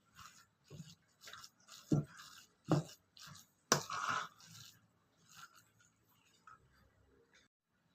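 Kitchen handling sounds: three sharp knocks among scraping noises, growing faint in the last few seconds.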